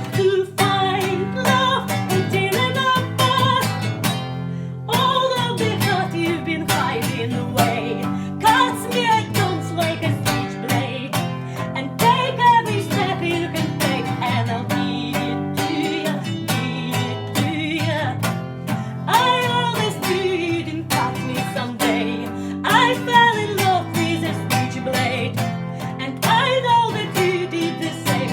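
Guitar accompaniment to a song, plucked and strummed, with falling sliding notes that recur every few seconds.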